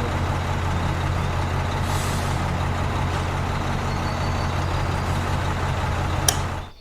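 A motor running steadily, a low hum under a noisy whir, cutting off suddenly near the end.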